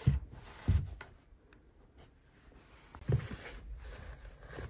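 Handling noise from velvet-lined jewellery organiser trays being lifted and moved by hand: a few soft low knocks with faint rustling and small clicks in between.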